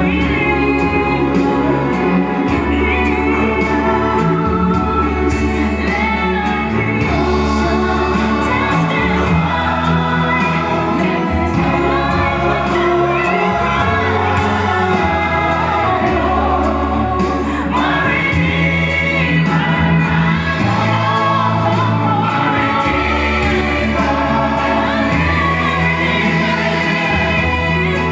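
Gospel choir singing over instrumental backing with held bass notes that change every second or two.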